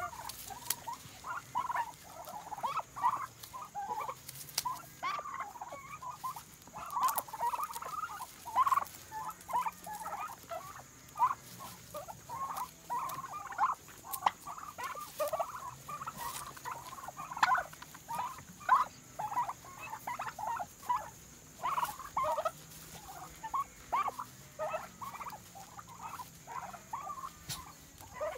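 A flock of Bronze Orlop turkeys chirping: many short, high calls, one after another and overlapping, with a few sharp clicks between them.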